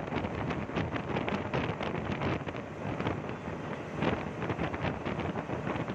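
Gusty wind buffeting the microphone aboard a speedboat at high speed, over the rush of water and spray from the wake and the boat's twin Suzuki outboard motors running.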